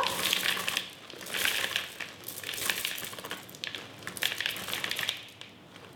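Chocolate pieces being shaken out of a plastic zip-lock bag into a plastic bowl: the bag crinkling and the pieces clattering into the bowl in several shakes about a second apart.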